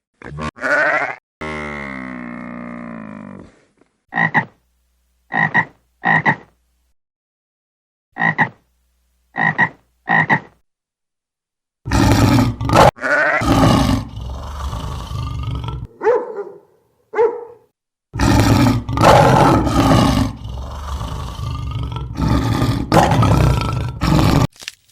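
Animal calls: a long pitched call at first, then two sets of three short calls, then a loud stretch of overlapping calls from about twelve seconds in.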